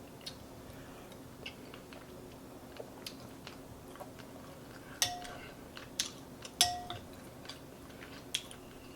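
Someone eating soup close to the microphone: scattered small chewing and mouth clicks, with a metal spoon clinking sharply against the bowl twice, about five and six and a half seconds in. A faint steady hum runs underneath.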